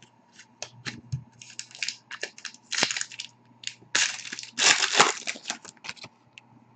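Foil wrapper of a hockey card pack crinkling and tearing as it is opened by hand: irregular crackles, with louder spells about three seconds in and again around four to five seconds in.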